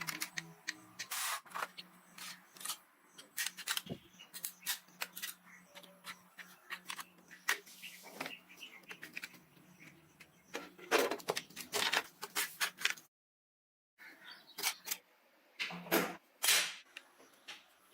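Irregular scraping, clicking and knocking of hand tools working on rusty metal, with a faint steady hum under it. The sound drops out completely for about a second past the middle.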